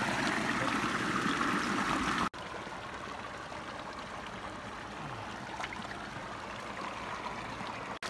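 Shallow stream running and trickling over rocks and dirt. About two seconds in, the flow sound drops suddenly to a quieter level.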